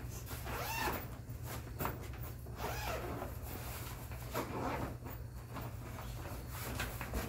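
Zipper on a griddle table's carry bag being pulled open in a few separate strokes, with the bag rustling as it is handled.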